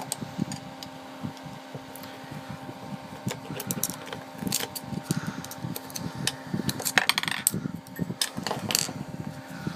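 Small plastic and metal clicks and taps as a cartridge fuse is prised out of an opened UK three-pin plug with a screwdriver, with a cluster of sharper clicks about seven seconds in. An electric fan hums steadily underneath.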